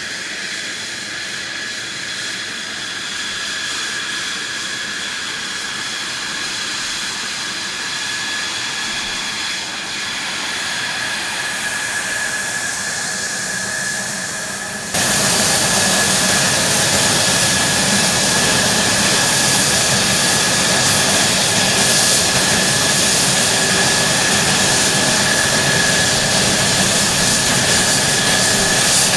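F-16 fighter's jet engine running at ground idle while taxiing: a steady high turbine whine over rushing exhaust hiss. About halfway through, it suddenly becomes louder and fuller.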